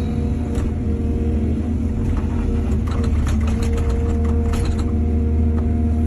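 Excavator's diesel engine running steadily, with a quick run of metallic clanks and rattles from about two to five seconds in.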